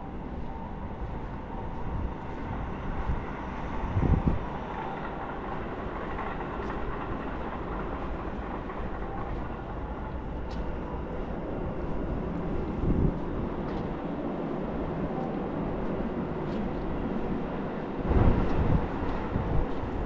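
Steady rumble of a passing vehicle, with brief low thumps about four seconds in and again near the end.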